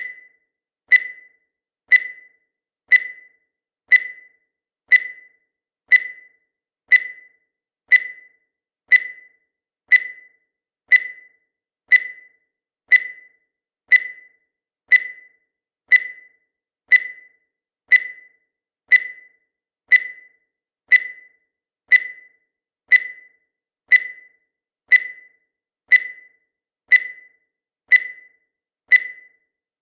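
Countdown timer sound effect: a short, high beep or tick repeating exactly once a second, each one dying away quickly, marking off the seconds.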